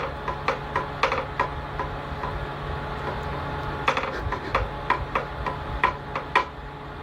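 Irregular light knocks and taps over a steady low hum, bunched near the start and again in the second half.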